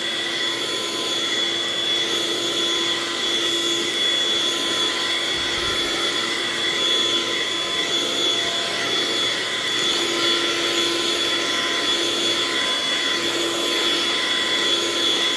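Household vacuum cleaner running steadily with a high whine from its motor, powered through a power inverter.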